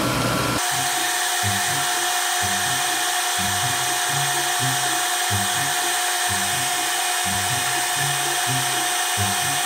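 Side channel (regenerative ring) blower with an inlet filter running steadily with its intake open, drawing fresh air: an even rushing noise with a faint fixed whine. A stepping pattern of low notes runs underneath, starting about half a second in.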